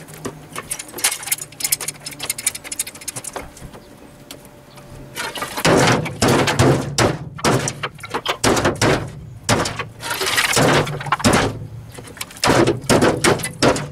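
Clay roof tiles clacking and clattering as they are pulled off a shed roof by hand and thrown down, a run of sharp knocks that gets louder and denser from about halfway.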